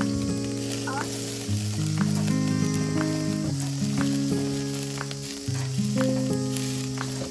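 Food sizzling as it fries, a steady fizzing hiss with small crackles, under background music of slow sustained chords that change about every two seconds.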